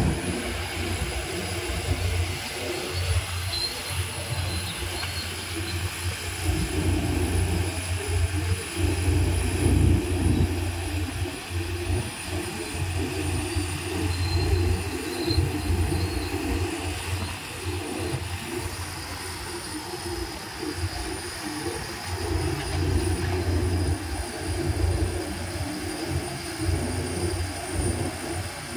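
REL C600H crawler drill rig running: a steady, heavy mechanical rumble that swells and eases, with a thin high whine over it.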